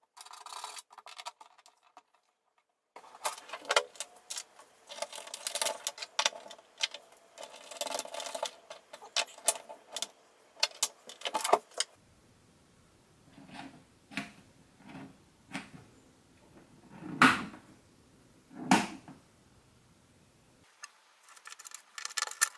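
Small plastic clicks, taps and rattles of a panel-mount selector switch and pushbutton being handled and fitted into an enclosure lid, busiest in the first half. Two louder knocks come about three-quarters of the way through.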